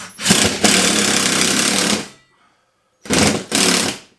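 Power driver running in bursts as it drives 3-inch decking screws: a run of about two seconds, then after a pause two short bursts near the end.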